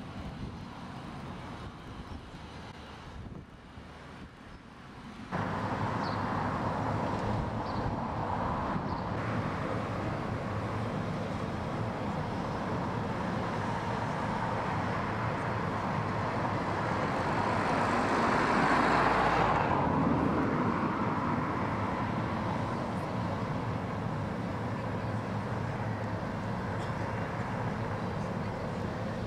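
Steady outdoor rumble of distant traffic that steps up sharply in level about five seconds in. It swells and fades again about two-thirds of the way through as a vehicle passes.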